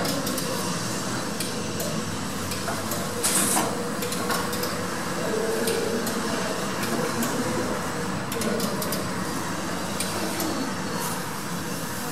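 Passenger lift car travelling in its shaft: a steady running hum with scattered clicks and rattles from the car and landing door gear, and a louder clatter about three seconds in.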